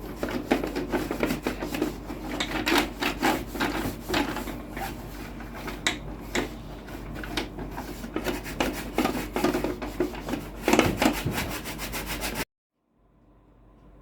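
Irregular rubbing and scraping strokes over a low steady hum, cutting off suddenly near the end.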